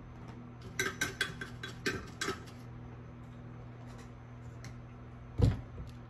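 Small metal tools clinking on a workbench: a quick cluster of light metallic clicks about a second in, then a single loud knock near the end, over a steady low electrical hum.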